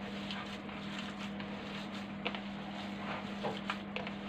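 Hands kneading and squeezing seasoned minced meat in a plastic basin, giving soft, scattered squishing sounds, over a steady low hum.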